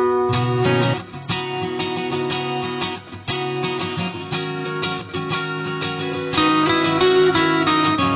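Background music led by plucked, strummed acoustic guitar, played at a quick even pace.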